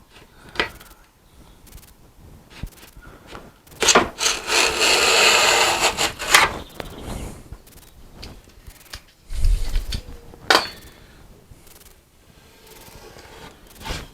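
A hand tool rubbing along the edge of a wooden board to trim and smooth fresh edge banding, in one long scraping stroke of about two and a half seconds. A few sharp knocks and a dull thump follow as the tool and board are handled.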